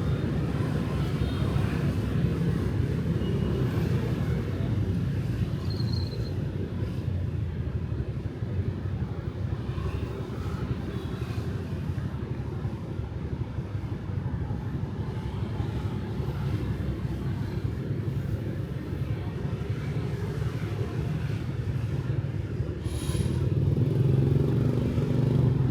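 City street traffic of motorbikes and cars, a steady low rumble that swells near the end as traffic passes closer. A brief high hiss cuts through near the end.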